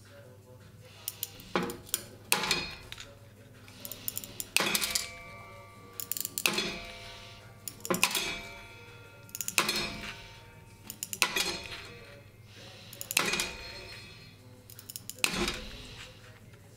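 Hand tile nippers snapping small mosaic cubes off a tile strip, one sharp snap about every second and a half, each followed by a short clink of the cut piece.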